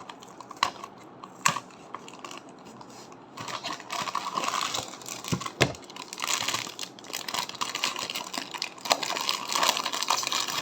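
Plastic snack packet being handled and opened: a few sharp clicks, then from about three and a half seconds in a continuous crinkling and rustling of the wrapper as it is pulled open.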